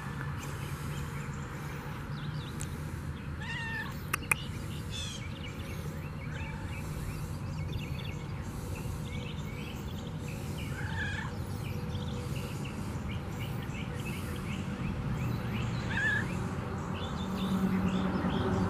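Domestic cat giving a few short, separate meows over a steady low rumble.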